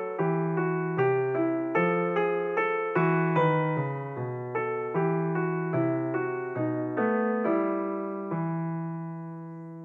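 Solo piano music: notes and chords struck one after another, with a last chord left to ring and fade away near the end.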